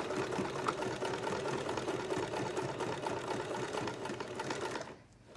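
Light-duty home sewing machine stitching the pleated layers of a cloth mask, a fast even run of needle strokes, stopping about five seconds in.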